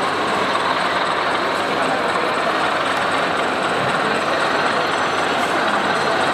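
Steady, even din of a model railway exhibition hall.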